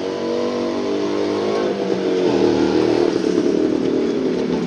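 A motor vehicle engine running steadily, its pitch shifting about two seconds in and growing a little louder.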